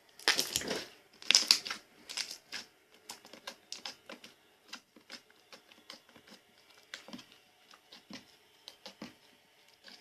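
Slime being squeezed and worked in the hands, making quick crackling clicks and little pops, several loud ones in the first second and a half, then a steady patter of smaller clicks.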